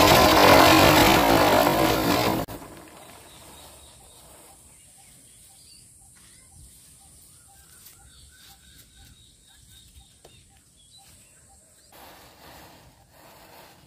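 A Diwali firework spraying sparks with a loud steady hiss that cuts off suddenly about two and a half seconds in. Near the end, a faint fizz from the burning matchstick chain.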